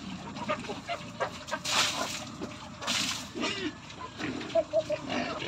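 Several pigs grunting in a pen, with irregular short noisy bursts about two and three seconds in.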